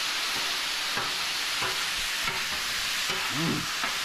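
Sauced chicken thigh pieces sizzling steadily on a hot flat-top griddle, with a metal spatula scraping and turning them a few times.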